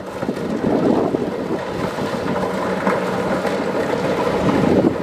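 Kubota DC-70 Plus rice combine harvester running steadily, its engine giving a continuous low drone under the broad clatter and rush of the machine.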